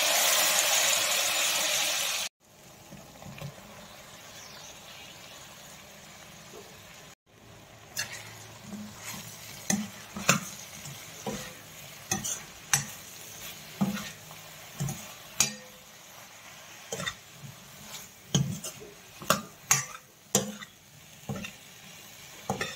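A loud sizzling hiss for about two seconds at the start. After a break, a metal spoon stirs chopped brinjal (eggplant) in a stainless steel pan, with repeated clinks and scrapes of spoon on steel about one or two a second over a faint frying sizzle.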